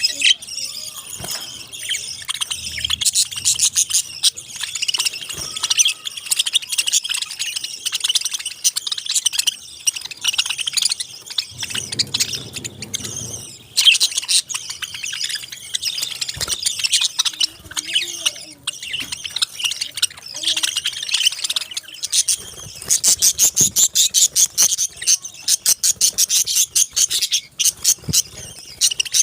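Pet parakeets chirping and chattering continuously, many high calls overlapping. Near the end comes a run of quick, evenly repeated chirps.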